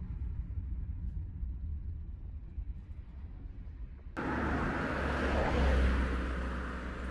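Low, steady road rumble heard from inside a moving car. About four seconds in it cuts to a louder rushing noise that swells and then fades.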